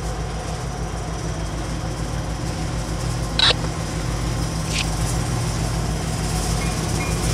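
Diesel freight locomotive engine rumbling steadily as the train approaches, growing slowly louder, with a sharp click about three and a half seconds in.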